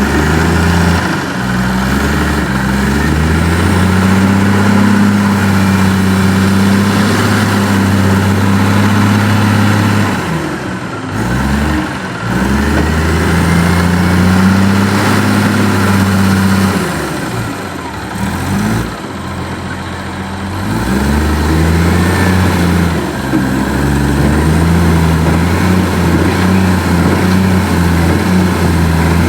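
Heavy machine's diesel engine running hard under load, its pitch falling away twice, about a third and two-thirds of the way through, before revving back up.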